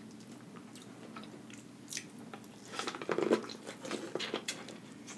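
Biting into and chewing a piece of corn on the cob, close to the microphone: a couple of sharp clicks about two seconds in, then a run of crisp crunches and smacks from about three seconds on.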